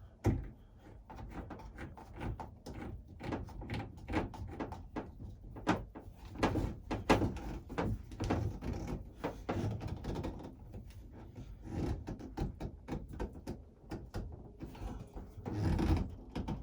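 Plastic shower-hose fittings being handled and screwed on by hand: irregular clicks, taps and light knocks throughout, with a louder thump near the end.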